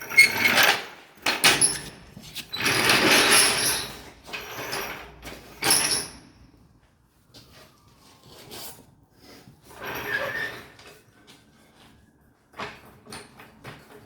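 Irregular knocks, clanks and scrapes of tool work on metal parts, with a longer noisy burst of about a second and a half early on and quieter stretches in between.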